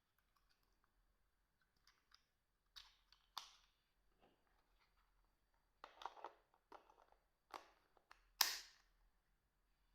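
Scattered clicks and taps of the Nokia 2110i handset being handled and its keys pressed, one group about three seconds in, a cluster around six to eight seconds in, and the loudest tap near the end.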